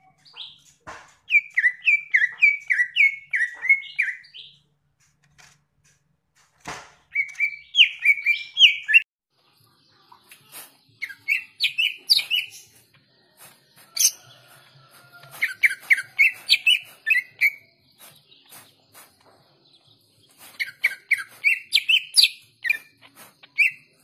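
Caged green leafbird (cucak ijo) singing: five phrases of quick, sharp chirping notes with short pauses between them, and a few faint clicks.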